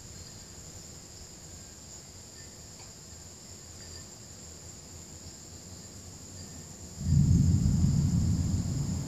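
Steady high buzzing of insects, then about seven seconds in a sudden low rumble of thunder from an approaching storm that stays loud and slowly eases off.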